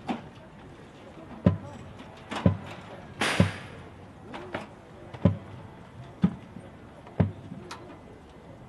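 Marching band percussion opening the show: slow, evenly spaced low drum hits about once a second, with one cymbal crash about three seconds in.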